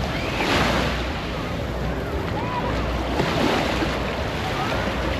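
Surf breaking and washing up on a beach, with a louder surge of wash about half a second in. Wind is buffeting the microphone.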